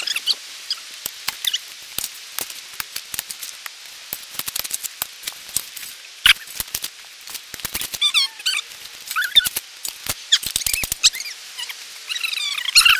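Shovels scraping and chopping into dirt: an irregular run of short scrapes and knocks. High squeaky chirps come in about eight seconds in and again near the end.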